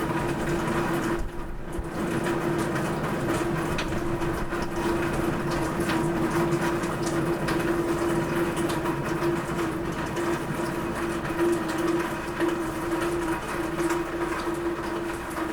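Steady rain falling on a roof, a dense patter of many small drop ticks, over a continuous low hum.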